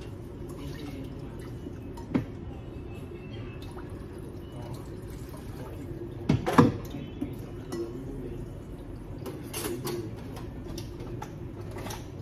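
Kitchen dish clatter at a sink: a pan and utensils knocking, with water running and dripping, the loudest clank about six and a half seconds in, over a steady low hum.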